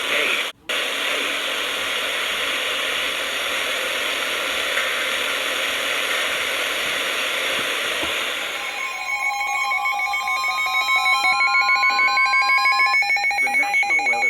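Steady radio static hiss that cuts out briefly just after the start. About nine seconds in, emergency alert tones take over: rapidly pulsing electronic beeps with a tone that glides steadily upward in pitch.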